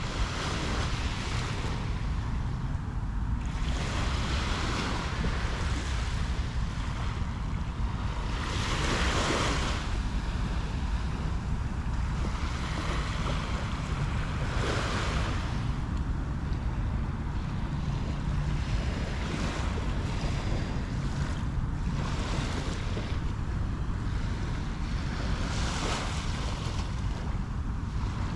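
Sea waves washing up the beach, a swell of surf hiss every few seconds, over a steady low rumble of wind on the microphone.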